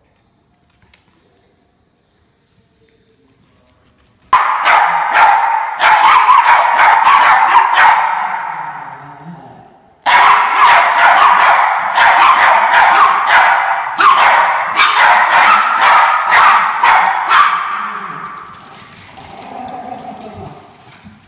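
Norfolk terriers barking rapidly and continuously, the barks running into one another. The barking starts suddenly about four seconds in, dies away, bursts out again about ten seconds in, and tapers off near the end.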